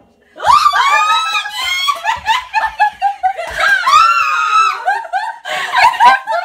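Adults shrieking and laughing loudly, starting about half a second in: high squeals that rise and fall, then fast, choppy laughter.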